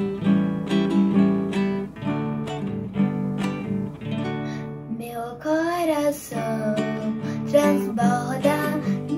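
Acoustic guitar strumming chords. About five seconds in, a young girl's voice starts singing a Portuguese children's worship song over it.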